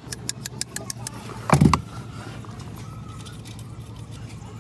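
Socket ratchet clicking rapidly as a bolt on the steering shaft joint is turned, then a single loud clunk about a second and a half in.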